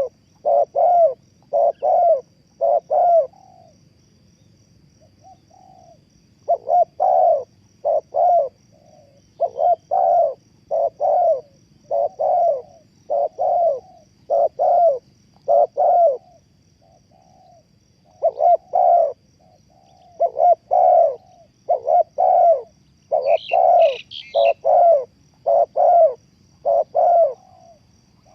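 Spotted dove cooing: loud, repeated notes in phrases of several, broken by a couple of short pauses. A brief higher chirp from another bird comes in about two-thirds of the way through.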